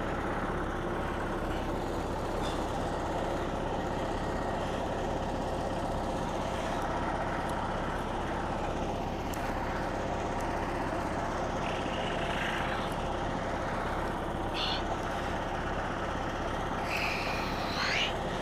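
Frontier OS27 portable bandsaw mill running steadily under its engine, with a low pulsing drone. A few short, high squeaks come in the second half.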